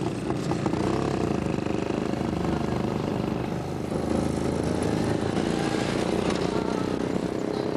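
Motorcycle engine running steadily as the bike rides away.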